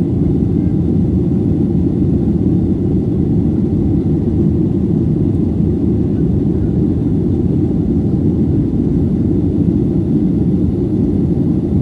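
Steady low roar of a Boeing 737-800's CFM56 jet engines and the rushing air, heard inside the passenger cabin during the climb after takeoff.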